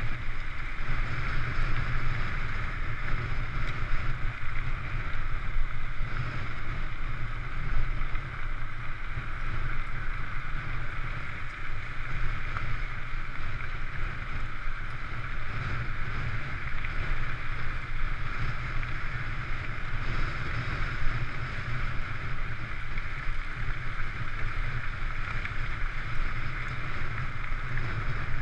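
Steady rushing noise of wind on the microphone of a handlebar-mounted camera, mixed with the rumble of mountain bike tyres rolling over a gravel road at race pace.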